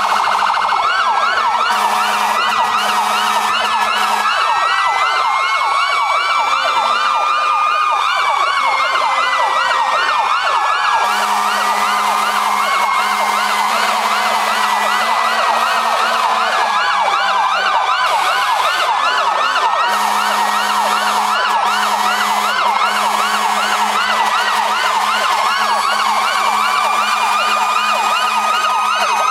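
Several fire-truck and rescue-squad sirens sounding at once: a fast yelp sweeping up and down several times a second over slower wails that rise and fall. Long, low, steady horn blasts break in now and then.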